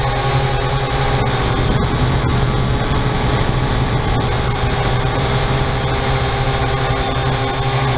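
Syma X8-C quadcopter's four motors and propellers running with a steady drone and whine, heard through the onboard keychain camera's microphone as the quad lifts off and climbs.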